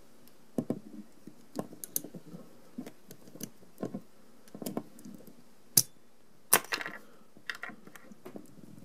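Hard plastic clicking and tapping as the Kenner Batman figure's power pack accessory is handled and pressed onto the figure's back, with irregular small clicks and two sharper snaps about two-thirds of the way in.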